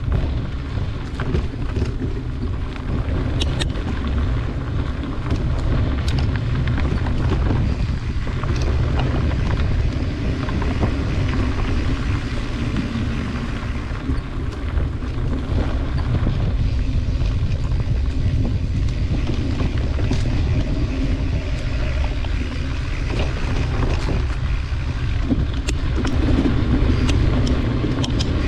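Steady low wind rumble on the microphone and tyre rumble from a mountain bike riding a dirt forest trail, with a few short clicks and rattles from the bike over bumps.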